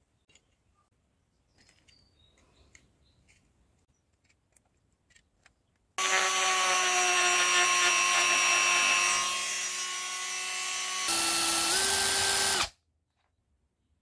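Handheld rotary tool with a small grinding-stone bit, running and grinding inside an aluminium can bottom: it starts suddenly about six seconds in, grows quieter for a stretch, its pitch steps up a little, and it cuts off abruptly near the end. Before it, only faint handling clicks.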